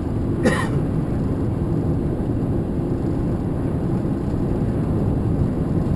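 Steady engine and road noise of a moving vehicle heard from inside the cab, with one brief sharp sound about half a second in.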